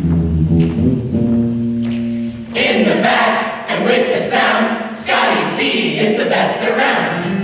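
Mixed show choir singing with live piano, keyboard and drum accompaniment. About two and a half seconds in, the held chords give way to a louder, brighter passage in short rhythmic phrases.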